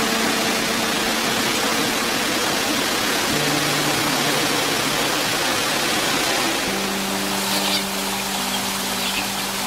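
Steady rush of water falling over a dam's weir, with soft sustained music notes underneath that shift to new chords twice.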